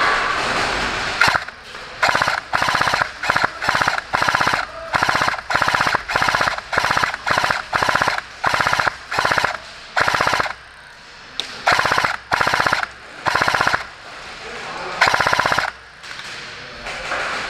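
Airsoft M249 Mk46 electric support gun firing a long string of short full-auto bursts, about one a second, with a few brief pauses.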